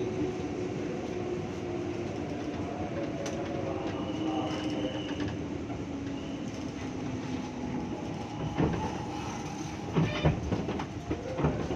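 KRL electric commuter train running, its motor tones slowly falling in pitch as it slows, with a thin high squeal in the middle. From about two thirds of the way in come loud irregular knocks of the wheels over rail joints.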